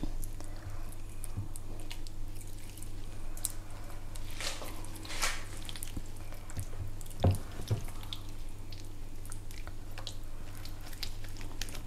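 Wet squelching and smacking of hands rubbing a thick tandoori marinade into a raw turkey leg, with a low steady hum underneath.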